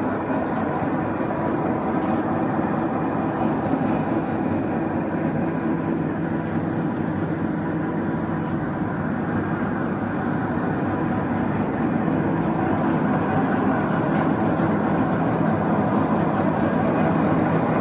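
Large NILES engine lathe running at 236 RPM: a steady mechanical hum of motor and gearing with several steady tones, growing slightly louder in the second half.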